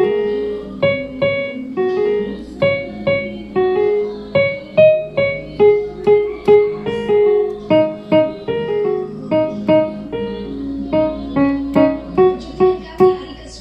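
Yamaha PSR-50 electronic keyboard played in a piano voice: a simple melody of separate notes, about two or three a second, each dying away quickly.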